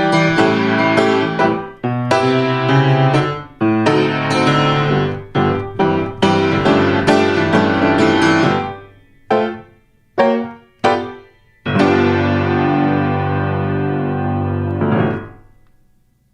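Piano playing a run of chords that ends on a long final chord which fades away near the end.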